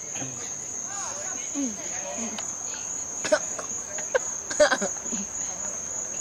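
A steady, high-pitched insect trill, with a few faint clicks and small short sounds underneath.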